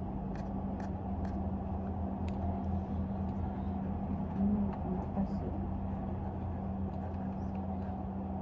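Steady low machine hum, with a few faint clicks in the first couple of seconds.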